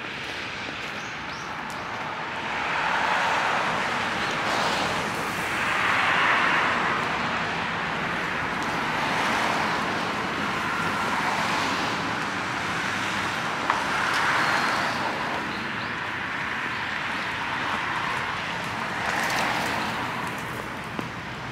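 Road traffic: cars passing along the road, their tyre noise swelling and fading away several times over a steady background hum.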